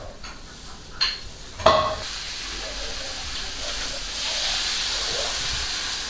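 A sharp clank of a pot or pan at about a second and a half in, then hot oil sizzling and hissing as it is poured over a steamed fish topped with shredded scallion and ginger, swelling for about four seconds before stopping abruptly.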